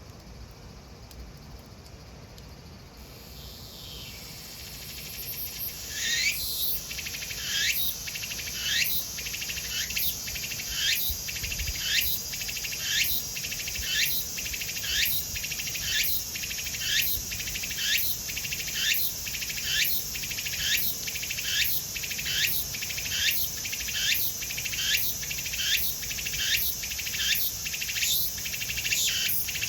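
Cicadas singing. A high buzz swells over the first few seconds, then settles into loud calls repeated about once a second, each rising in pitch, over the steady buzz.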